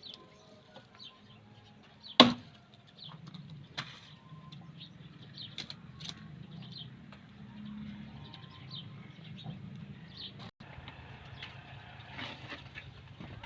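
A single sharp axe blow into wood about two seconds in. After it a low, steady engine rumble starts and runs on, with faint bird chirps and small knocks over it.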